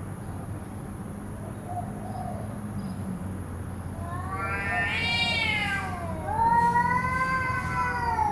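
Cats yowling in a fight: two long, drawn-out, wavering yowls about halfway through. The first rises and falls in pitch, and the second follows straight after and slides down.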